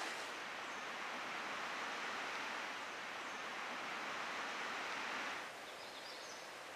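Outdoor forest ambience: a steady hiss like wind in trees or distant running water. About five and a half seconds in it drops to a quieter hiss, and a few faint, high bird chirps come in.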